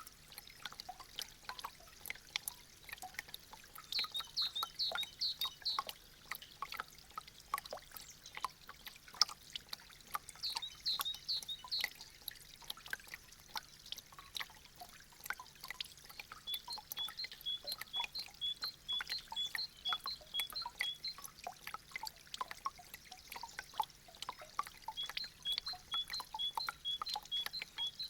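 Meltwater dripping from melting icicles: many quick, irregular drips and a light trickle. Runs of high, evenly spaced chirping notes come and go, about four seconds in, around eleven seconds, and in longer series in the second half.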